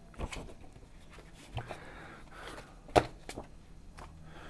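Paper and plastic packaging being handled: light rustling with a few soft knocks, the sharpest one about three seconds in.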